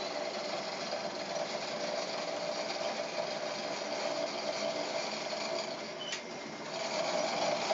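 Foley 355 planer-knife grinder running, its grinding head traversing automatically along the knives: a steady machine whir and grinding hiss with a steady hum. About six seconds in there is a brief click, and the sound dips for a moment before it resumes.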